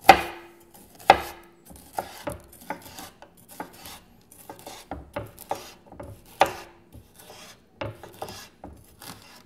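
Chef's knife slicing a bell pepper into strips and striking a wooden cutting board: a run of irregular chopping strokes, roughly two a second. The loudest strikes, at the start, about a second in and past the middle, leave a brief ring from the board.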